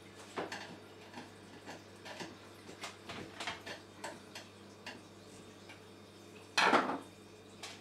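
Screwdriver working the brass terminal screw of a cooker connection unit: a run of small, irregular metal clicks and ticks as the live terminal is undone and the wire is pushed into place, with one louder scrape near the end.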